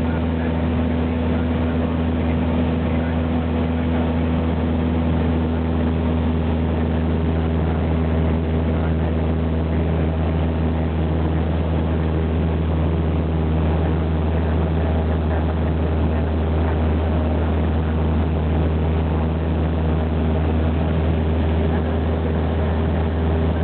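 Cessna 172's piston engine and propeller droning steadily in flight, heard from inside the cabin: a loud, unchanging low hum with a few steady tones over it.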